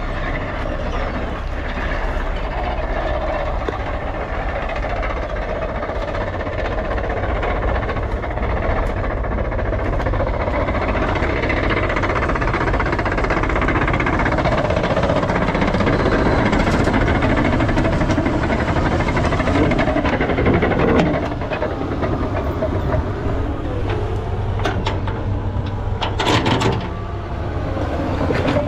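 Heavy diesel machinery running steadily, growing louder toward the middle and easing off, with a few sharp metallic clanks near the end.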